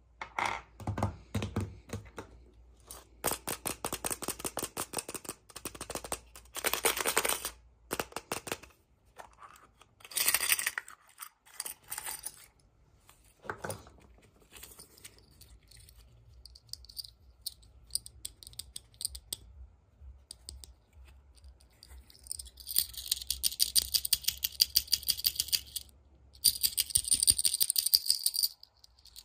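Crinkling, rattling and tearing of packaging being handled and opened, in several bursts of rapid crackle with short pauses between; the longest and loudest bursts come near the end.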